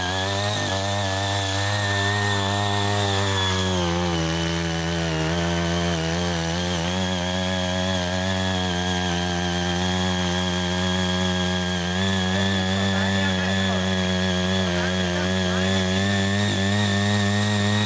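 CHING YEE CY80 mini power tiller's small engine running steadily under load while its rotary tines churn and weed soil. Its pitch drops slightly about four seconds in, then holds steady.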